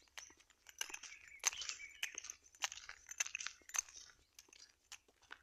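Footsteps crunching on a dirt track, a gritty crunch with each step at a walking pace of about one and a half steps a second.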